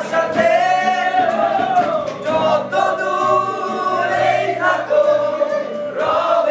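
A group of young men singing together to an acoustic guitar, with drawn-out sung notes over the guitar's steady chords.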